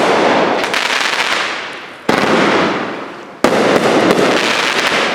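Consumer fireworks going off: three sharp shots, at the start, about two seconds in and about three and a half seconds in, each followed by a long crackle that fades away.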